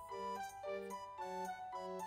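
Quiet background music: a light tune of held notes over a bass note that lands about twice a second.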